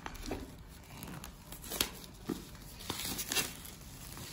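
Thin clear plastic wrapping crumpled and crinkled by hand, in irregular rustles and crackles.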